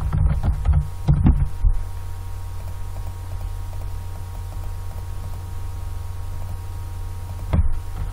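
Steady low electrical hum on the recording, with a few brief clicks of computer keyboard keys in the first second or so and again near the end.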